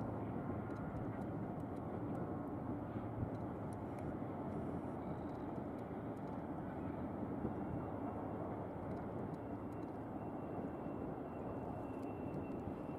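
Steady, distant rumble of a double-stack intermodal freight train rolling past, with no distinct clanks or horn.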